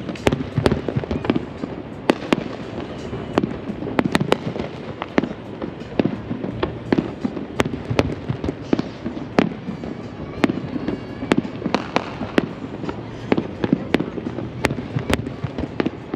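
Fireworks shells bursting in a steady barrage, several sharp bangs a second, over a constant rumbling crackle.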